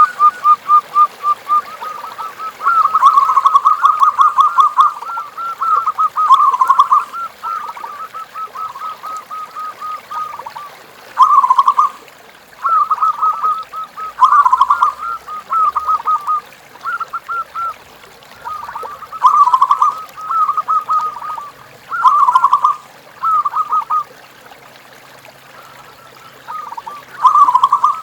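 Zebra doves (perkutut) cooing: repeated phrases of rapid, stuttering notes, each a second or two long, with short gaps between.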